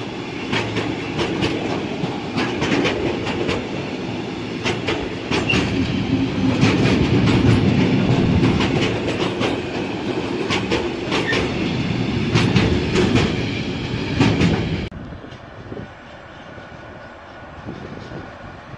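Freight train of tank wagons rolling past close by, its wheels rumbling and clacking over the rail joints. About 15 seconds in the sound cuts off suddenly to a much quieter rumble.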